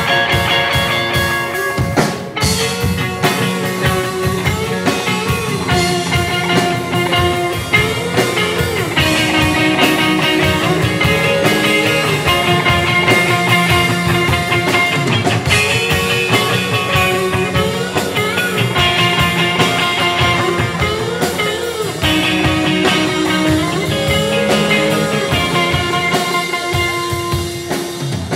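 Rock band playing an instrumental passage with guitar and drums, a melodic guitar figure repeating over a steady beat.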